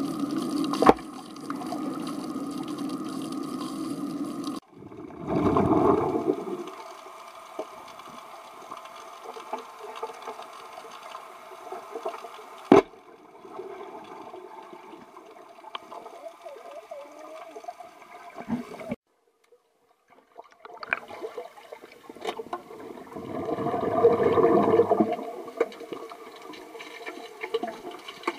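Underwater sound in a swimming pool, heard through a submerged camera: a muffled wash of water with two louder gushes of rushing bubbles, about five seconds in and again around twenty-four seconds, and a few sharp clicks. The sound drops out abruptly about a second before the middle.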